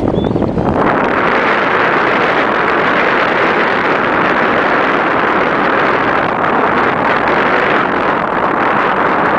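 Steady rushing noise of a boat under way: water and wind hiss that builds within the first second and then holds level.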